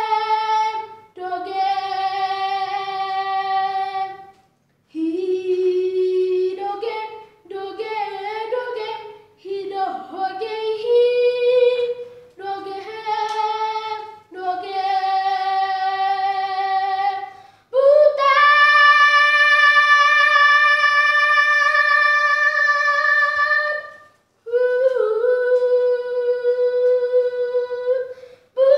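A boy singing solo, unaccompanied, in phrases separated by short pauses. About two-thirds of the way in he holds a long, steady high note for around six seconds, then sings one more phrase.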